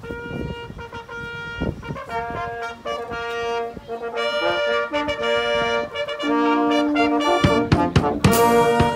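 Brass band playing a ceremonial signal: slow, held chords from trumpets and trombones, starting softer and growing louder near the end.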